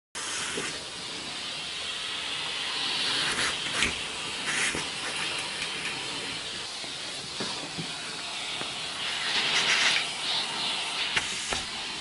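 Bosch ProSilence vacuum cleaner running, its hose nozzle drawing air with a steady hiss that grows louder near the end. Brief rustles and scuffs of a cloth blanket being pawed over the nozzle come and go on top.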